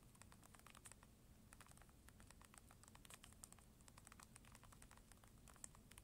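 Faint, rapid clicking of the Unihertz Titan's physical QWERTY keys under the thumbs as a sentence is typed: many short key clicks a second in an uneven run.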